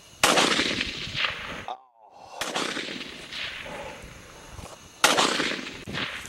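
Three rifle shots from a scoped rifle, about two and a half seconds apart, each loud crack trailing off in an echo.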